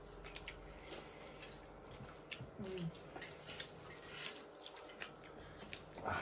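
People eating close to the microphone: soft chewing and mouth smacks with many small, scattered clicks.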